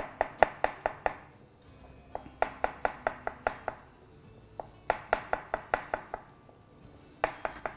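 Knife slicing mushrooms on a cutting board: quick runs of about six cuts, roughly five a second, with short pauses between runs, the last run starting near the end.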